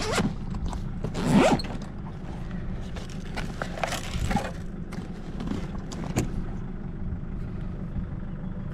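Zipper of a canvas rubbish bag on a 4WD's rear spare wheel being pulled open, loudest about a second and a half in, followed by scattered scrapes and clicks of the bag being handled as a piece of plastic goes in. A steady low rumble runs underneath.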